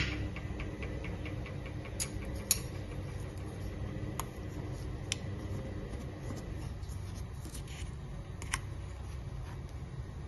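White plastic spoon stirring and scooping nut powder in a stainless-steel mixer-grinder jar, with about five light clicks and taps against the jar over a steady low hum.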